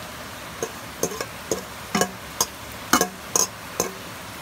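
Kitchen utensils clinking against dishware: about nine irregular light knocks, two of them with a brief ringing tone.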